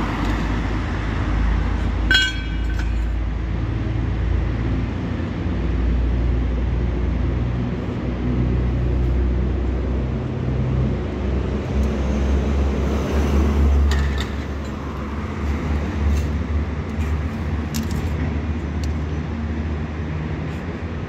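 Steady low rumble of road traffic passing, swelling for a while past the middle. A sharp, ringing clink of steel pieces knocking together about two seconds in, and a few lighter metal clicks later.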